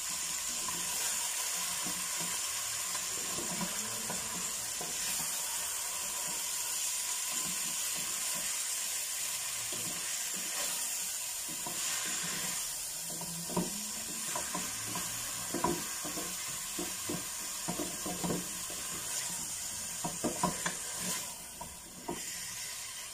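Chicken pieces frying in oil in a pot, a steady sizzle, with a wooden utensil stirring and knocking against the pot; the knocks become frequent in the second half.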